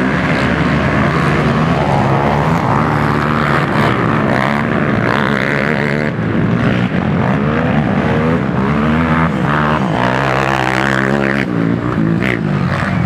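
Several motocross dirt bikes running loudly on the track, their engines revving, with pitch rising and falling.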